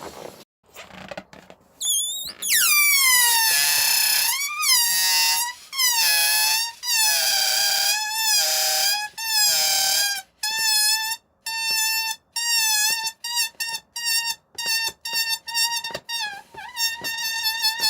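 Air escaping from an inflated rubber balloon through its neck, which is pinched and stretched tight so the neck squeals. A long squeal falling in pitch starts about two seconds in, then comes a run of wavering squeals. The second half breaks into many short chopped squeaks, with a warbling squeal near the end.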